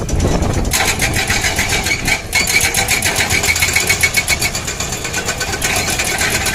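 Excavator's hydraulic rock breaker hammering in a rapid, even rhythm over a running engine.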